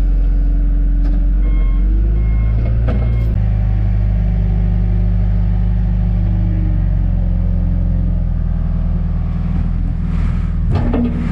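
John Deere 310G backhoe's diesel engine running as it works, with a backup alarm beeping three times a couple of seconds in. The engine picks up speed about three seconds in, and a brief knock comes near the end.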